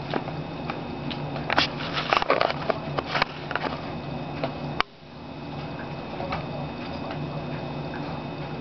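An old man snoring while asleep in a chair: rasping, crackly breaths about a second and a half to three and a half seconds in, over a steady background hum, with a sharp click near the middle.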